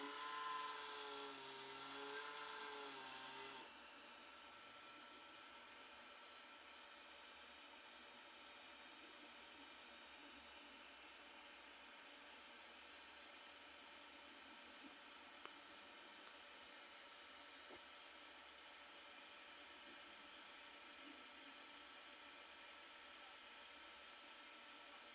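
Electric fan humming steadily: a faint whine with a few steady tones over a hiss. For the first few seconds a wavering, warbling tone rides over the hum, and there are two faint ticks later on.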